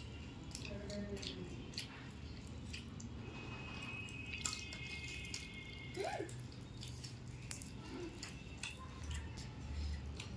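People eating momos fast: scattered soft, wet clicks and smacks of chewing mouths, over a low steady hum.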